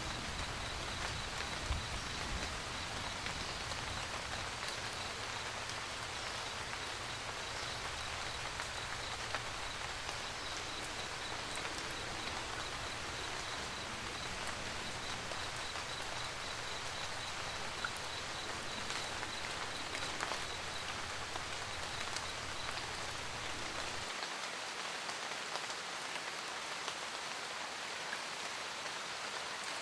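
Steady rain falling, an even hiss of drops. A low steady rumble runs underneath and cuts off suddenly about 24 seconds in. A faint, high, evenly pulsing chirp sounds through most of it and stops a little before that.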